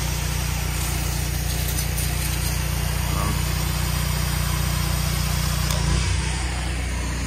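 Pressure washer spraying a high-pressure jet of water, a steady hiss over the steady drone of the rig's engine and pump. About six seconds in the low drone shifts briefly and the sound drops a little.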